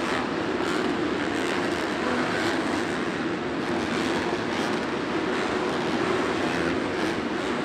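Several supercross dirt bikes' four-stroke engines running hard around the track, blending into one dense, steady engine noise that echoes around the stadium.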